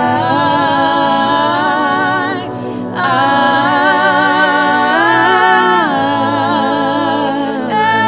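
A solo voice singing a slow worship melody with vibrato on long held notes, over steady held low notes of accompaniment. A short pause for breath comes about two and a half seconds in.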